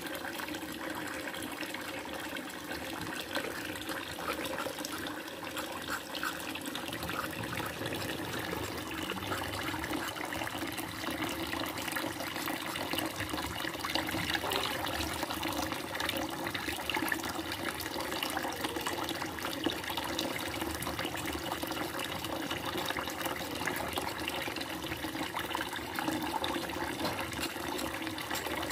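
Kitchen tap running steadily into a plastic basin in a steel sink, with splashing as hands wash in the stream.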